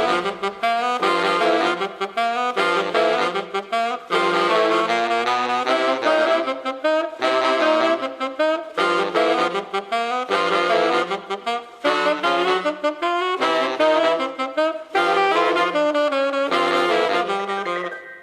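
Instrumental music: a lead melody played in short phrases with brief pauses between them, fading out near the end.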